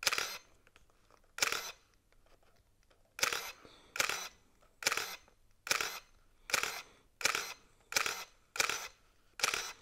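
First-generation Canon EOS film SLR taking a string of about eleven shots: each is a quick shutter clack with its built-in motor advancing the film. The shots come roughly once a second, a little faster after the first few seconds.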